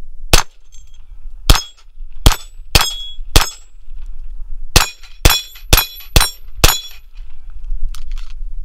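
Ten rapid shots from a Volquartsen Scorpion .22 LR semi-auto pistol firing CCI Green Tag, five in quick succession, a pause of about a second, then five more, each followed by a short high ping of the steel targets being hit. A few faint clicks come near the end.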